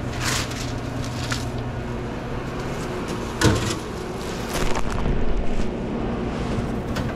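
Work sounds behind a sandwich shop counter: a sharp knock about three and a half seconds in, then a louder stretch of clattering, over a low steady hum.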